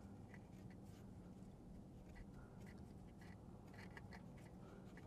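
Near silence: faint, irregular small clicks and scrapes of a hand tool on a bolt, over a low steady hum.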